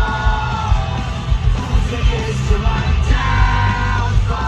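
Live rock band with electric guitars and drums playing loud, a lead singer's vocal phrases falling in pitch near the start and again about three seconds in, heard from the crowd through a phone's microphone.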